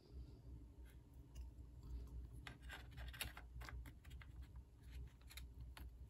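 Faint scraping and small clicks of a laptop memory stick being handled, lined up and slid into its slot on the motherboard, with a cluster of clicks in the middle.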